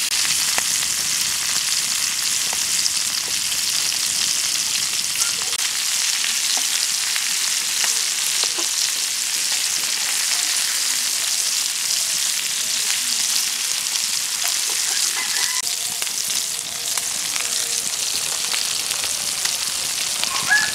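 Pieces of climbing perch (koi fish) sizzling as they fry in oil in a metal wok, a steady hiss with scattered small pops.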